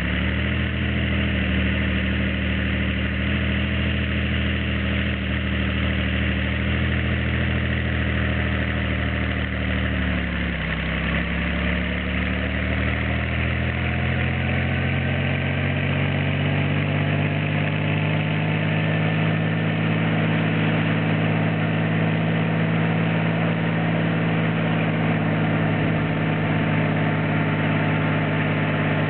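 Bell 47 helicopter's piston engine running just after startup. The engine speed dips briefly about ten seconds in, then climbs over several seconds and holds higher as the rotor comes up to speed.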